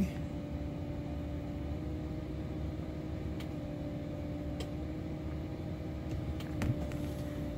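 A small electric motor running with a steady hum over a low rumble, with a few faint ticks.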